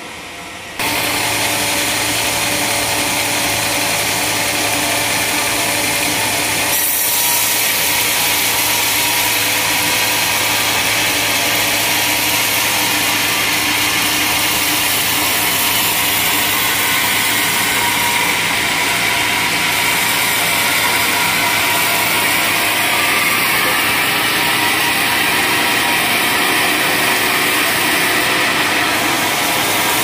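Band sawmill cutting a large slab from a big log: the blade's steady hiss through the wood over the machine's constant hum. It starts suddenly about a second in and grows a little louder about seven seconds in.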